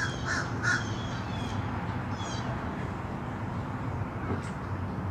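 A bird calling several times in quick succession at the start, then once more about two seconds in, over a steady low background noise.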